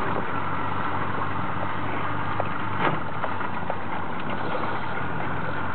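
Boat engine idling steadily, with a few faint short ticks over it.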